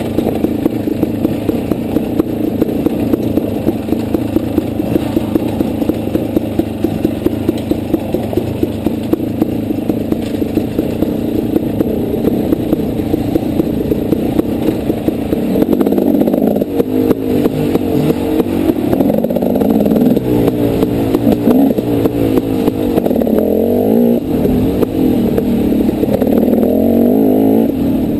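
Dirt bike engine running under way, fairly steady through the first half, then louder and rising and falling in pitch from about halfway in as the throttle is opened and closed.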